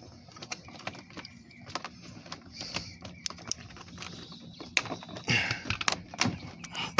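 Plastic steering column cowl being pushed and wiggled into place around the tilt lever: irregular clicks, knocks and scrapes of plastic, busiest near the end.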